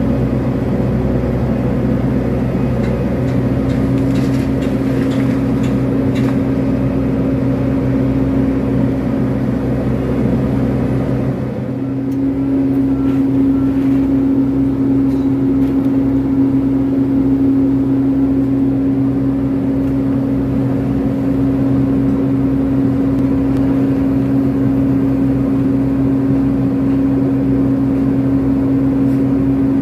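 Kobelco hydraulic excavator's diesel engine running steadily under load while it breaks down a house's masonry walls, with scattered knocks and crashes of falling rubble in the first seconds. About twelve seconds in, the engine note changes and grows a little louder and steadier.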